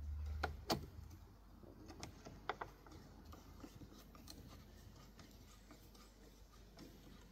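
A few sharp clicks and faint scattered taps of a screwdriver and hands working a worm-drive hose clamp on a car's air intake hose, two clicks under a second in and two more about two and a half seconds in.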